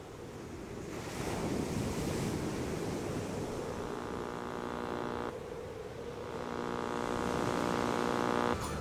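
Ocean surf washing on a beach, swelling with an incoming wave about a second in. A steady buzzing tone joins about four seconds in, breaks off briefly, then comes back and stops near the end.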